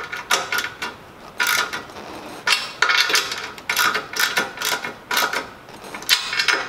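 A 9/16 ratchet with a deep-well socket clicking in short bursts, about one a second, as the handle is swung back between pulls while tightening the bolts that clamp the sidecar's aluminium mounting bracket.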